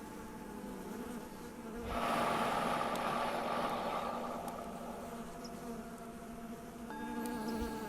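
Bees buzzing among lavender, loudest as one passes close about two seconds in, over the ringing tones of a Tibetan singing bowl; a fresh bowl note starts near the end, marking the next breath.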